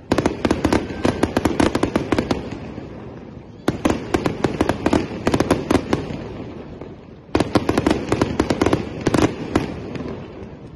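Fireworks going off: dense, rapid crackling bangs in three bursts, each starting suddenly and fading away.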